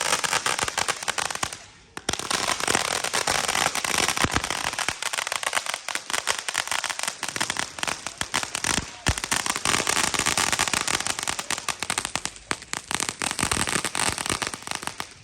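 Firecrackers going off in a rapid, continuous crackle of pops. There is a brief lull about two seconds in, and the crackle stops abruptly at the end.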